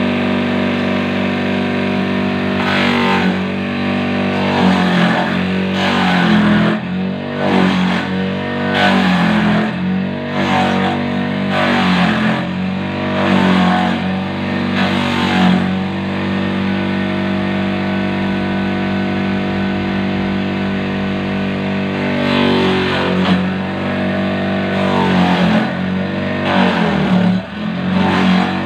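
Electric motor salvaged from a used water pump, driving a homemade banana-stem chopper: a steady hum that sags in pitch, with a rough shredding noise, each time a piece of banana stem is pushed into the blade, about once every second or two. Midway it runs for several seconds with nothing fed in, then the chopping starts again near the end.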